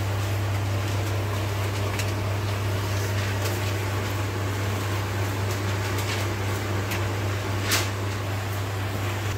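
A steady low mechanical hum with an even hiss, with one sharp click about three-quarters of the way through.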